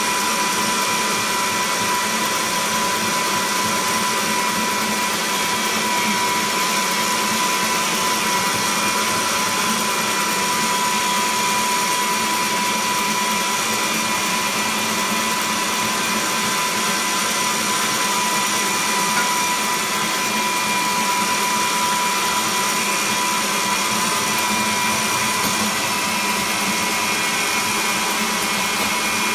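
Electric stand mixer running at one steady speed, its motor giving a constant whine as the whisk beats a mixture in the metal bowl.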